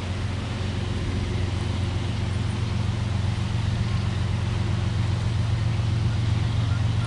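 Diesel freight locomotive engines approaching: a steady low rumble slowly growing louder.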